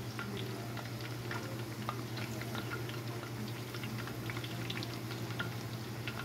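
Hot oil sizzling steadily as folded corn tortillas deep-fry into tacos dorados in a wide steel pan, with many small crackling pops. A low steady hum runs underneath.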